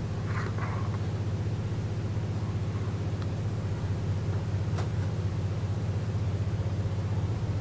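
Steady low rumble of a moving passenger train heard from inside the carriage, with a faint click a little past halfway.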